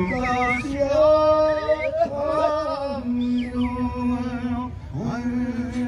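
A man singing a powwow song, holding long steady notes that slide down in pitch at the ends of phrases.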